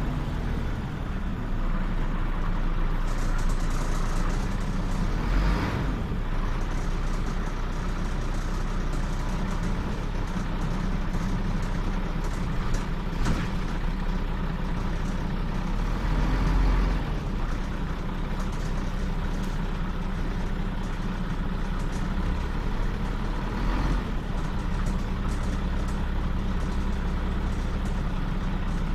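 Scania CN94UB OmniCity city bus standing with its engine idling steadily, with a few short hisses of compressed air from its air system.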